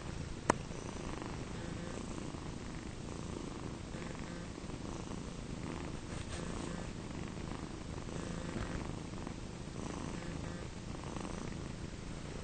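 Abyssinian cats purring steadily, a mother cat and her 7-week-old kittens as the kittens nurse. One sharp click about half a second in.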